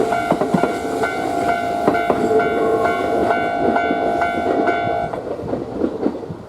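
Japanese level-crossing alarm ringing in a steady repeating ding while a train runs over the crossing, its wheels clacking over the rail joints. The alarm stops about five seconds in, and the train noise fades as it moves away.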